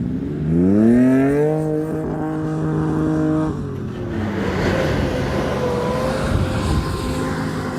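Four-wheel-drive engine revving hard as it charges up a sand dune: the pitch climbs over the first second or so and holds high, then drops about three and a half seconds in, giving way to a rougher, noisier engine sound.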